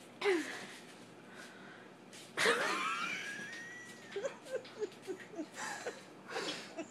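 A person laughing hard and almost without voice: a loud high squeal about two and a half seconds in, then a run of quick, breathy, wheezing gasps.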